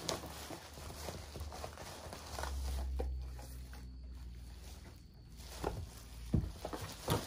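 Plastic bubble mailer crinkling and rustling as small cardboard boxes are pulled out of it and handled, with a few soft knocks, two of them sharper near the end, and a low rumble near the middle.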